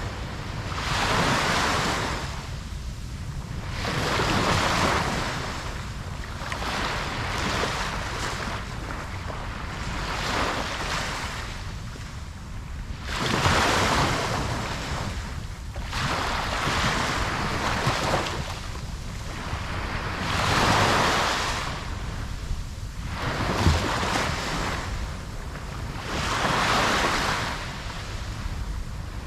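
Ocean surf breaking and washing up a beach, the rush of water swelling and falling away in repeated surges every few seconds over a steady low rumble.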